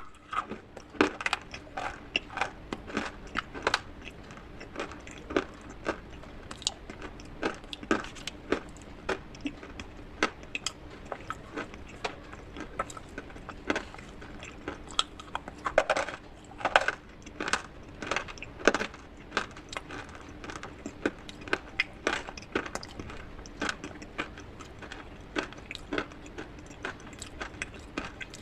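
Irregular crisp crunches and clicks of hard clay and slate pieces being crunched, some several times in quick succession, over a faint steady low hum.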